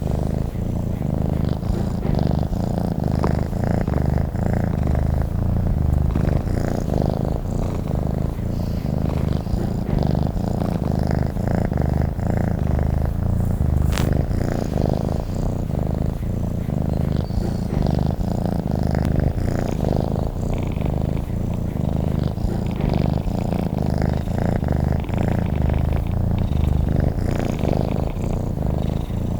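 Domestic cat purring continuously, a steady low rumble of fast pulses.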